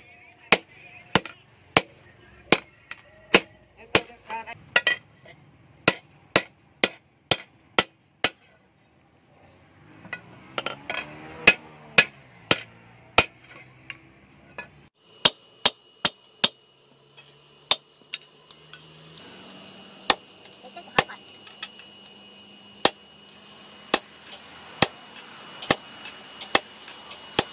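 Hand hammer blows ringing on red-hot pipe steel over a steel-pipe stake anvil, in a steady rhythm of about two strikes a second, with a short pause about a third of the way through. In the later part a steady high hum runs under the blows.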